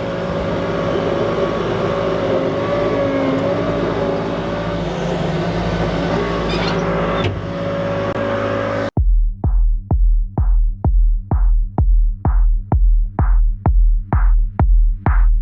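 An engine runs steadily for about nine seconds, then cuts off abruptly to electronic dance music with a steady kick drum of about two beats a second.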